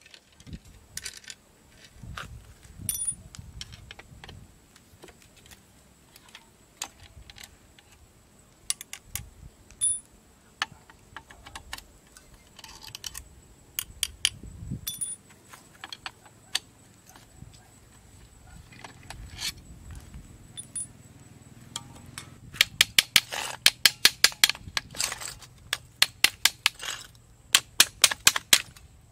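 Scattered metallic clicks and clinks from taking apart a car alternator's aluminium housing as its long through-bolts are worked out. About three-quarters of the way in, the clicks turn into a fast, loud run of three or four a second that lasts several seconds.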